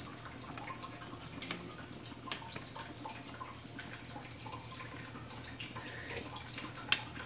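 Water sounds in a kitchen: a steady wash with scattered small drips and clicks, and one sharp click near the end.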